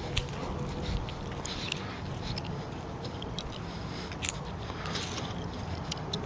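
2001 Pontiac Trans Am WS6's LS1 V8, fitted with a Texas Speed Torquer V2 camshaft, idling with a low, uneven rumble through long-tube headers and a Hooker Aero cat-back exhaust. A few light clicks sound over it, the sharpest about four seconds in.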